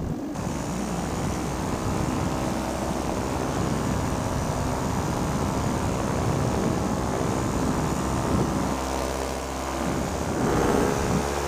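Paramotor's Simonini two-stroke engine running in flight with a steady propeller drone. The drone dips slightly and picks up again near the end.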